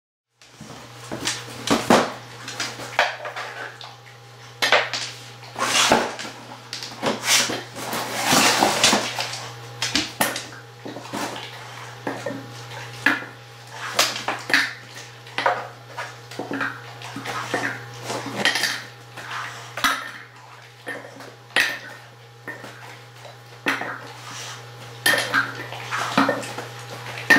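A dog eating softened kibble from a metal bowl: irregular clinks and scrapes of its teeth and tongue against the bowl, with a few louder knocks.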